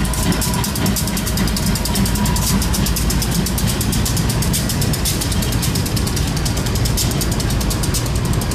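Union Pacific diesel yard switcher locomotives passing slowly under power: a steady, heavy engine rumble with a fast, even beat over it.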